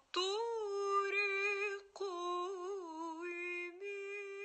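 A solo voice singing slow, drawn-out notes with vibrato in three phrases, the first sliding up into its note.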